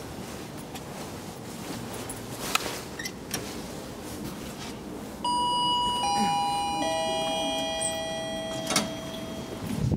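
Elevator arrival chime: three descending ringing notes, each starting about three-quarters of a second after the last and ringing on so they overlap, announcing the car's arrival at the floor. A sharp click near the end.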